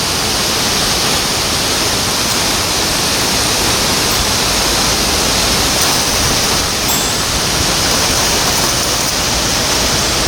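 Rushing water of a mountain river or waterfall, a steady loud hiss with no pauses.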